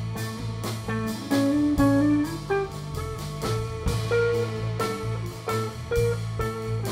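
Live instrumental passage by a Balkan folk-fusion band: a drum kit keeps a steady beat of about three hits a second under a moving melody on violin and plucked strings (guitar and lute), with piano.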